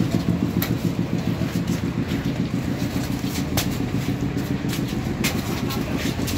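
A motor vehicle engine running steadily at idle, with a few light clicks over it.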